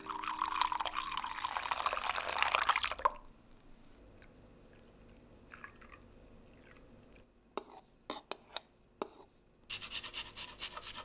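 Coffee poured in a stream from a glass server into a ceramic mug, stopping about three seconds in. A fainter pour of milk follows, then a few light clicks and a rhythmic scraping near the end.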